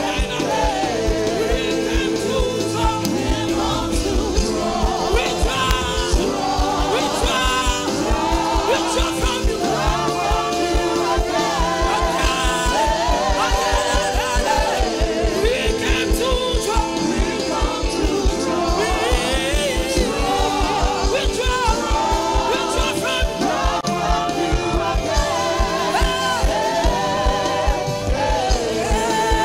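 Live gospel praise song: a vocal group singing in harmony over a band with bass guitar and a steady beat.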